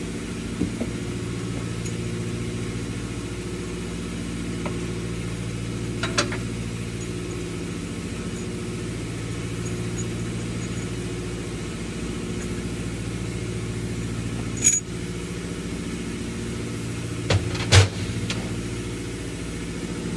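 A steady, low mechanical drone, like an engine idling, with a few sharp metallic clinks from tools on the engine, the loudest two near the end.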